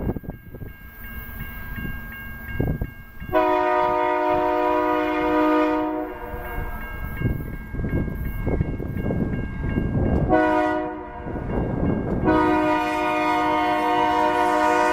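Multi-tone air horn of a Union Pacific GE AC44CWCTE diesel locomotive sounding for a grade crossing: a long blast, a short one, then another long one, over the low rumble of the approaching train. A crossing bell rings faintly in the background.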